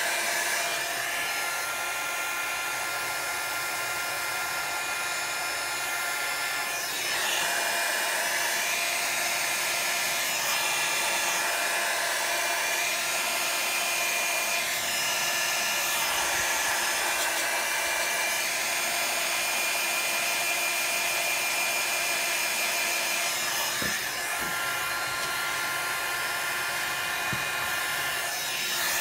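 Small handheld electric blower running steadily, blowing air onto wet alcohol ink to push and dry it, with a steady motor whine over the rush of air. It gets a little louder about seven seconds in and dips briefly near the end.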